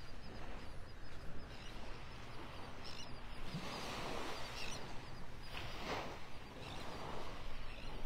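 Beach ambience: wind rumbling on the microphone under gentle surf that swells up a few times, with faint bird chirps.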